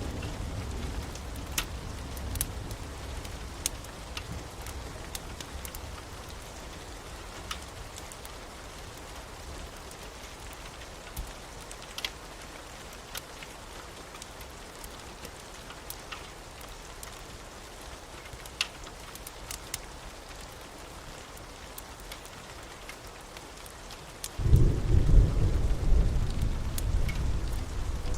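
Thunderstorm: steady rain with scattered sharp drips and taps. A low rumble of thunder dies away over the first few seconds, then a loud peal of thunder breaks suddenly near the end.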